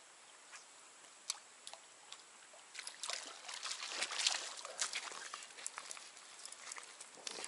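Shallow river water splashing and sloshing, with a dense run of crackly splashes from about three to six seconds in and a few separate clicks before it.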